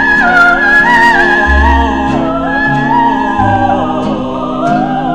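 Music from a 1957 pop record: a high wordless vocal line with vibrato, gliding between notes over orchestral accompaniment.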